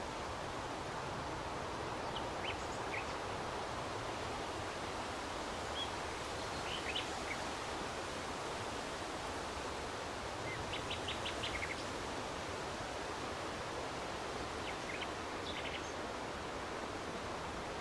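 Steady wind rushing through the leaves of trees, with short bird chirps scattered over it, including a quick run of several notes about two-thirds of the way through.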